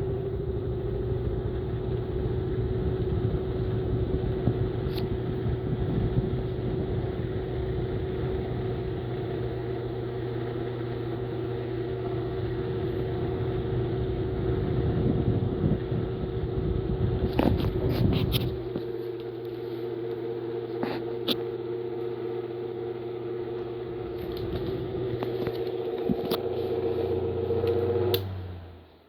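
Venti Delta oscillating table fan running with a steady motor hum and a low rumble that stops about two-thirds of the way through, with a few clicks along the way. Near the end the hum drops in pitch and cuts out.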